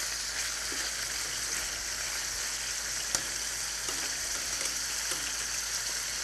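Rolled slices of London broil wrapped around prosciutto searing in hot oil in a frying pan over medium-high heat, a steady sizzle. A single light click about three seconds in.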